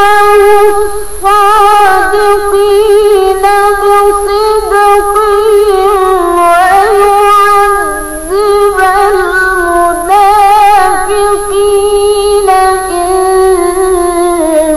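A woman reciting the Quran in melodic tilawah style, drawing out long ornamented notes with a wavering, trilling voice and sliding turns of pitch. There are short breaks for breath about a second in and near the eight-second mark.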